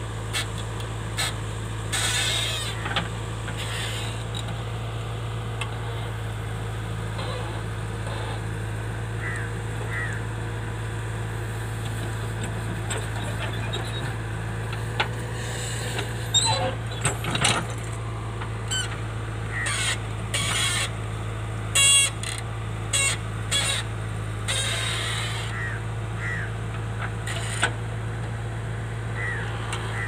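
JCB backhoe loader's diesel engine running steadily while the machine digs soil, with scattered short clanks and knocks through the digging.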